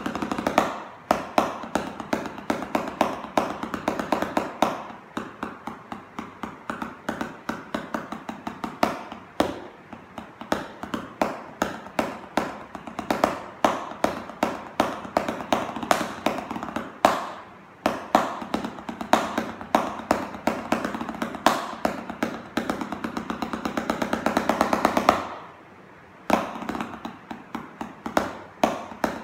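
Wooden drumsticks playing rudiments on a ProLogix Blue Lightning practice pad: runs of fast rolls mixed with louder accented strokes, with a brief pause near the end.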